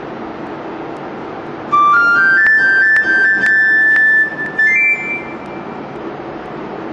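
Portable electronic keyboard playing a few high notes that step upward, the fourth held for about a second and a half, then a brief higher note; faint room hiss before and after.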